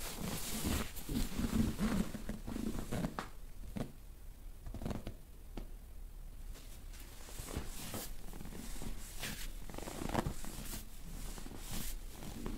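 A massage therapist's hands rubbing and pressing over cloth during a dry massage: fabric rustling and brushing in a string of short strokes, with a low rumbling rub in the first few seconds.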